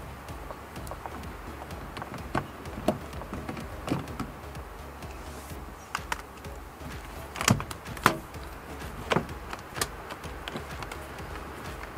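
Scattered sharp clicks and light knocks of a screwdriver and hands working on a car's plastic door trim panel, loudest and closest together in the second half, over a low steady hum.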